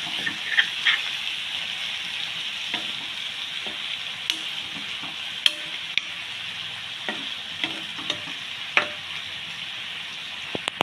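A thick chicken and plantain curry sizzles steadily in a black frying pan. A metal spoon scrapes and clinks against the pan now and then as it is stirred.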